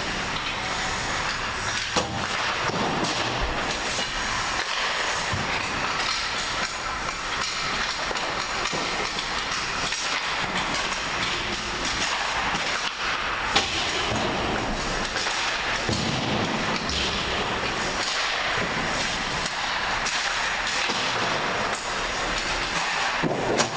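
Ice hockey on an indoor rink: a steady rushing of skates on ice and rink noise, with a few sharp knocks of stick on puck, about two seconds in, a little past the middle and near the end.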